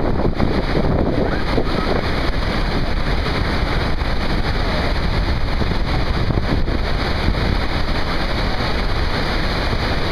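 Steady roar of the Iguazú Falls, falling water with wind buffeting the microphone.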